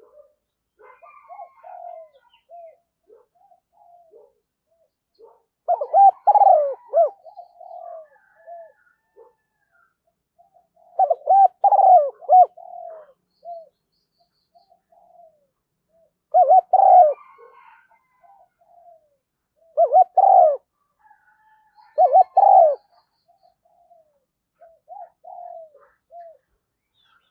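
Spotted dove cooing: five loud coo phrases a few seconds apart, with softer coos between them.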